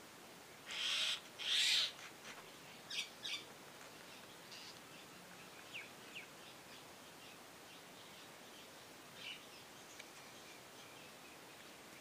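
Common mynas calling: two loud, harsh rasping calls about a second in, then a pair of shorter calls a couple of seconds later, followed by scattered faint short chirps and whistles.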